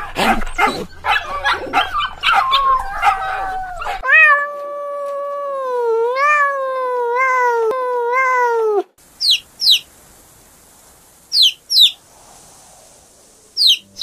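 A small dog yipping and barking in quick, overlapping yelps. About four seconds in it turns into a long, wavering animal call that rises and falls several times before cutting off. This is followed by a few short, high chirps.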